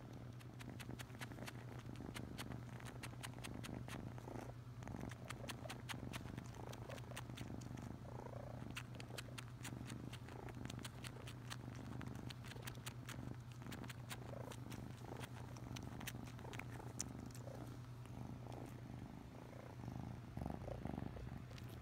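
Tabby kitten purring steadily while suckling on a knitted blanket, the purr a continuous low hum. Over it come rapid little sucking clicks, thickest through the first two-thirds, then thinning out.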